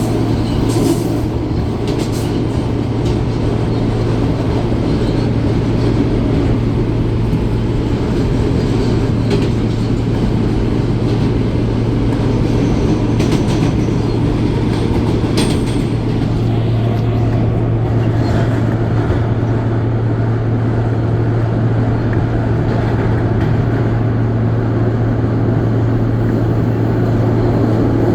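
R160 subway car running at speed, heard from inside the car: a steady rumble of wheels on rail and a constant low hum from the propulsion, with a few sharp clicks from track joints.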